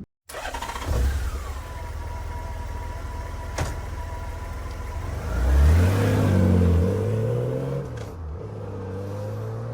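Honda GL1800 Gold Wing's flat-six engine running, then revving up about five and a half seconds in, its pitch climbing as it gets louder.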